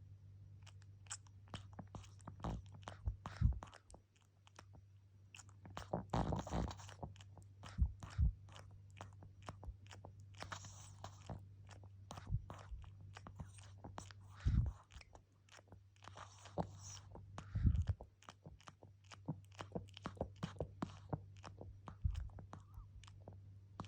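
A pug × Pekingese mix puppy making rapid, irregular wet sucking and smacking clicks with its mouth, the baby-like 'chuchu' suckling it does. A few longer noisy bursts come between the clicks.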